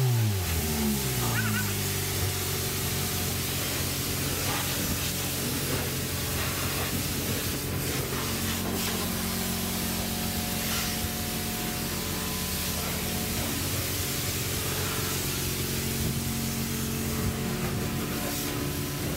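Pressure washer jet spraying water onto a car's paintwork: a steady hiss with a steady hum underneath.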